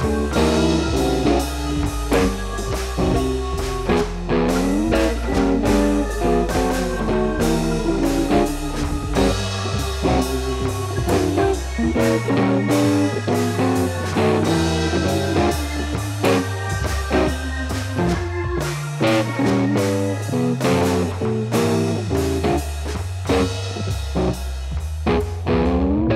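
Background music: a blues-rock tune with plucked guitar, bass and drum kit playing at a steady beat.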